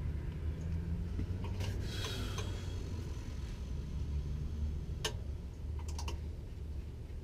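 A few light metallic clicks and clinks from hand work on metal parts under the car: a cluster about two seconds in with a brief ring, then single clicks later on, over a steady low hum.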